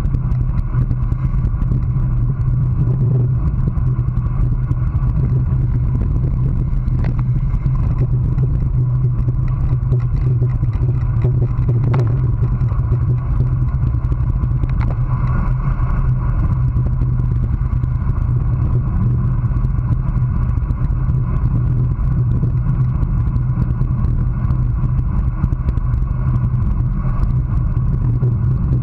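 Steady wind rumble and tyre-on-asphalt road noise picked up by a GoPro mounted on a racing road bike's handlebars, riding at about 22 to 30 mph. A single sharp click comes about twelve seconds in.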